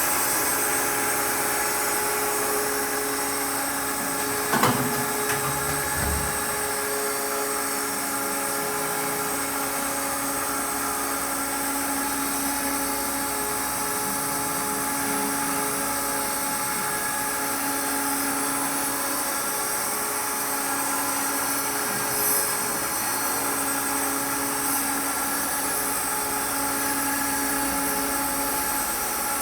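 Triad SSR CNC stair router's spindle motor running steadily with a whine of several constant tones. A brief knock comes about four and a half seconds in.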